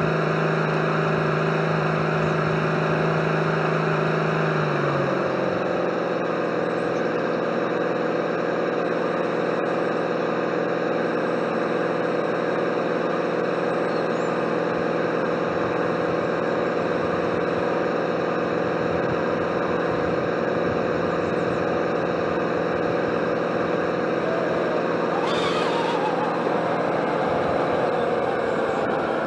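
Radio-controlled 1/12 scale DUKW amphibious model running, heard from on board: a steady mechanical hum with several held tones that drop slightly in pitch about five seconds in and shift again near the end, with a short hiss a few seconds before the end.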